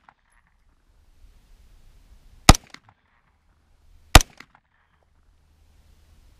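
Two 9mm shots from a KE Arms AR9 pistol, fired about a second and a half apart. Each shot is followed shortly by a fainter crack.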